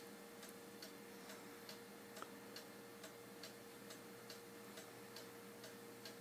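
A 1969 lumberjack-sawmen cuckoo clock ticking faintly and evenly, a little over two ticks a second, with a faint steady hum underneath.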